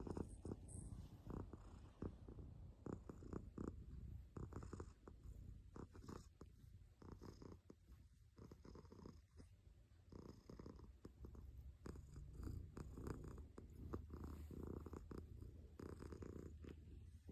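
Domestic cat purring: a faint, continuous low rumble that swells and eases in cycles of a second or two.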